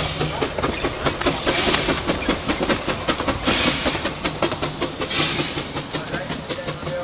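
Puffing Billy narrow-gauge steam tank locomotive moving slowly through the station, with short bursts of steam hiss every second or two over a steady run of knocking and clicking from its running gear and wheels.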